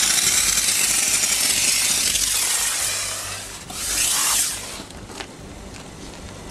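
Vapor Rino commercial vapor steam cleaner's nozzle blasting a hissing jet of steam onto a car's lower door panel to lift off mud. The first long blast fades after about three seconds, and a shorter blast follows about four seconds in.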